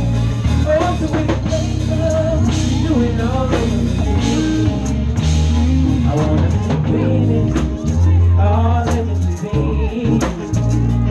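Live southern soul band through a stage PA: drums, bass and guitar play a steady groove while a male singer sings into a microphone.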